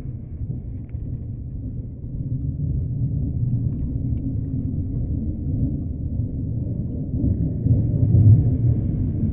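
Deep ocean underwater ambience: a steady low rumble with no high sounds in it. It swells about two seconds in and is loudest near the end.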